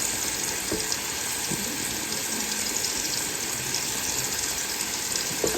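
Chuck roast searing in bacon grease in a Ninja Speedi's pot on the sear/sauté setting: a steady sizzle.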